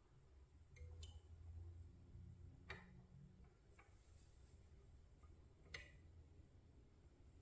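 Near silence broken by three or four faint, sharp clicks of a small replacement boom cylinder being handled and fitted against a scale model crane's boom.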